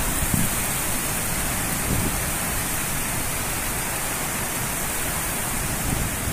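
Rain falling steadily, a dense even hiss of a downpour, with a few brief low thumps.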